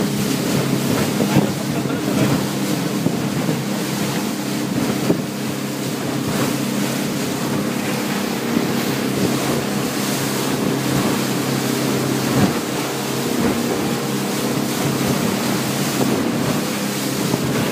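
Speedboat engine running at a steady pace while under way, with the sound of water along the hull and wind on the microphone.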